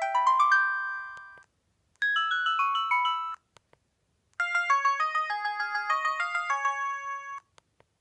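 ZTE F107 mobile phone's small speaker playing three short synthesized MIDI message-alert jingles one after another, each a quick run of stepped notes, with brief silences between them.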